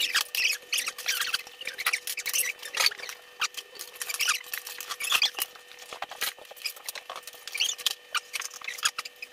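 Eating at a table: slurping of cup noodles and broth, with irregular small clicks and taps of chopsticks and spoons against bowls.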